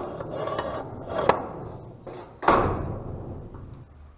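Three knocks, the last one loudest, with scraping between them, echoing in a corrugated-metal garage as things are handled.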